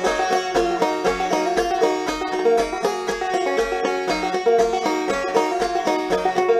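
Instrumental background music: quick picked string notes over a steady bass beat of about two beats a second.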